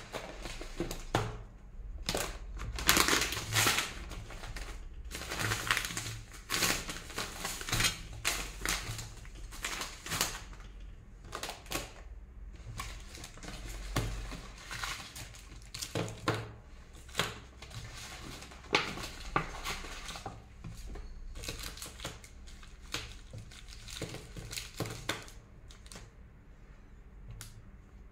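Plastic food packets crinkling and rustling as they are handled, with irregular taps and knocks of items being set down on a table.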